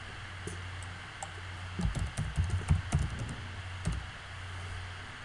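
Typing on a computer keyboard: a run of quick key clicks starting about half a second in, busiest around two to three seconds, stopping about four seconds in, over a steady low hum.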